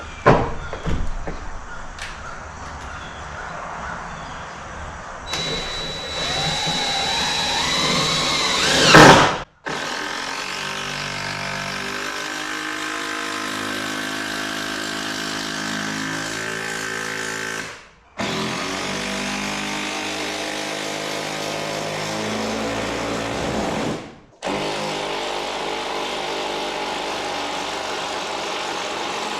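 Power drill running: a rising whine in the first part, then several long stretches at a steady speed, each cut off abruptly.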